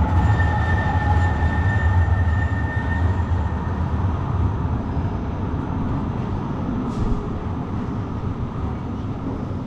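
Tram passing on the street: a loud, steady low rumble with a thin high whine over it for the first three seconds, fading gradually as it moves away.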